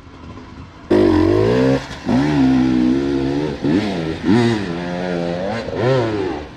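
Dirt bike engine revving hard, its pitch rising and falling several times as the throttle is worked on a climb. It comes in suddenly and loud about a second in.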